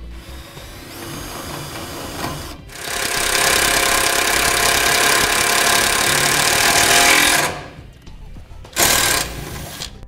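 Cordless power driver with a 3/8-inch nut driver bit, driving a number 14 screw into the truck frame to ground the trailer wiring. It runs in spurts: a softer start, one long loud run of about four seconds with a steady motor whine, then a short burst near the end.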